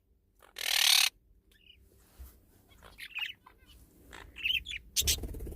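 Pet birds giving a few short, faint chirps, with a short burst of noise about half a second in.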